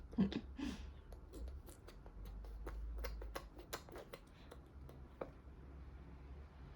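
A baby's brief vocal sound right at the start, then a scatter of soft, irregular clicks and smacks from a baby eating mandarin orange segments.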